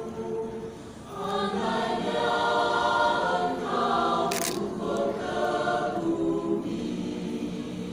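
Mixed choir singing held chords. The singing drops briefly about a second in, then comes back fuller and louder, with a short hiss near the middle.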